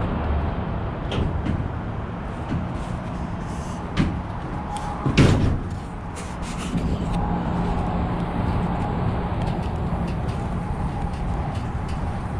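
Steady rumble of road traffic, with scattered footfalls and knocks on a steel deck; the loudest knock comes about five seconds in.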